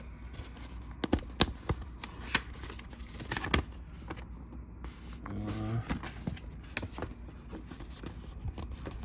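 Rustling and clicking of a model kit's paper instruction sheet being handled and leafed through, with several sharp clicks in the first few seconds.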